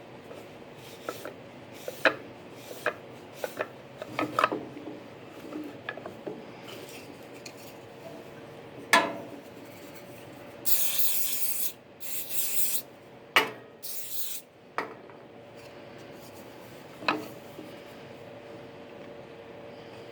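Hand work on a wooden box: scattered light clicks, knocks and rubbing, with three short hissing bursts a little past the middle, over a faint steady hum.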